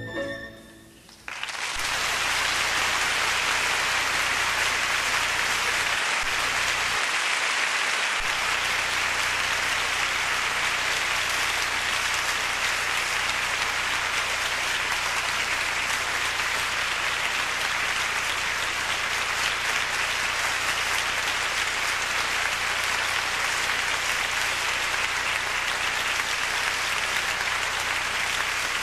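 The orchestra's final chord dies away, and about a second and a half in, a theatre audience breaks into dense, steady applause.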